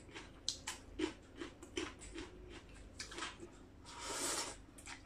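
Close-up chewing of crisp raw vegetables: a run of small wet crunches and mouth clicks, with a brief hiss about four seconds in.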